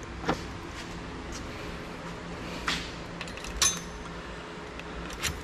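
A few light clinks and knocks of metal parts and tools being handled on a workbench, over a steady low hum.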